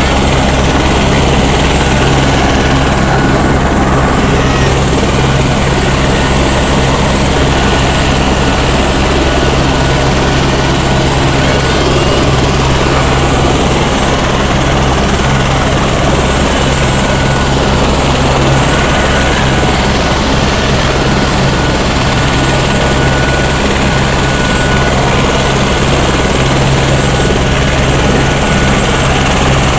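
Light turbine helicopter running on the ground with its main rotor turning: a steady low rotor hum with a thin, high turbine whine over it, unchanging throughout.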